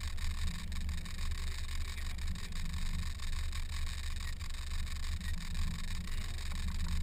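Fishing boat's motor running steadily, a low rumble under an even hiss.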